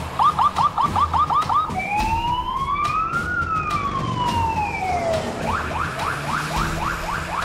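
Police car siren switching between a fast yelp of about five sweeps a second and a single slow wail that rises and falls in pitch over about three seconds, then back to the fast yelp.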